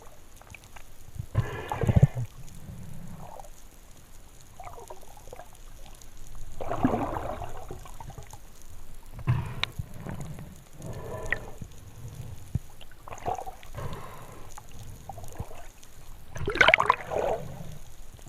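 Water gurgling and bubbling in irregular bursts over a steady low rumble, the loudest burst near the end.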